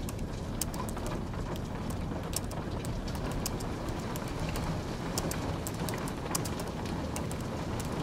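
Steady rain, with irregular quick clicks of typing on a low-profile keyboard, several keystrokes a second.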